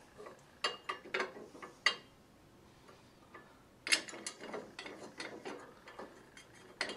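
Metal clicks and rattles of bolts being set through a gumball machine's metal base and screwed down into the rack bracket: a few sharp clicks early, a pause, then a denser run of small ticks near the end.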